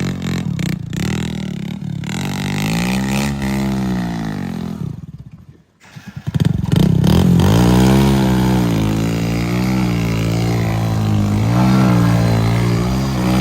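A heavy diesel engine revving up and down under load, its pitch rising and falling. The sound drops out briefly about halfway, then the engine comes back louder and keeps revving.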